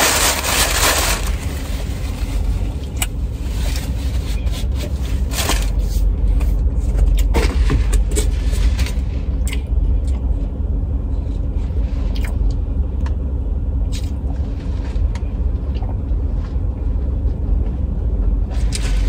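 Steady low rumble of a car heard from inside the cabin, with scattered light clicks and scrapes.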